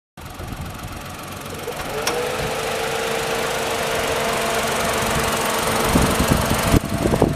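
Honda Life's 660 cc kei-car engine running, with a steady whine that comes in after a click about two seconds in and stops near the end.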